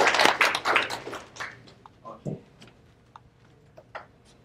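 Audience applause dying away over the first second and a half, followed by a few isolated claps.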